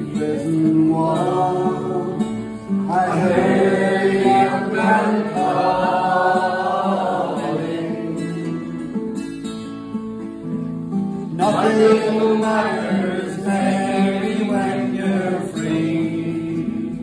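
Several voices singing an Irish ballad together over strummed acoustic guitars.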